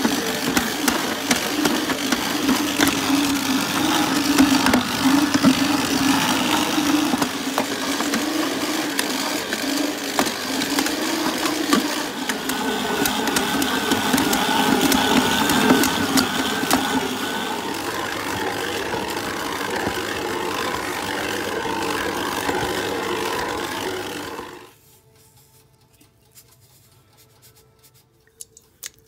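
Electric stand mixer running, kneading bread dough with its dough hook: a steady motor hum with rattling and slapping from the bowl. It stops suddenly about 25 seconds in.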